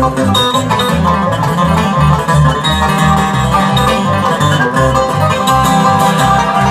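Bluegrass instrumental music: banjo picking with guitar over a steady, even beat.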